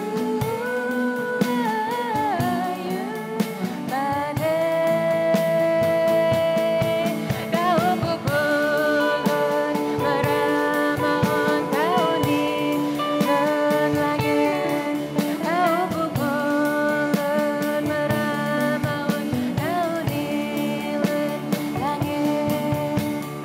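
Live band music: a woman's singing voice holding and sliding between long notes over a sape (Bornean long-necked lute), electric guitar and drums.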